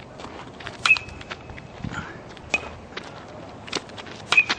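A series of sharp knocks or clicks at irregular intervals. The strongest, about a second in, midway and near the end, each ring briefly with a high metallic ping.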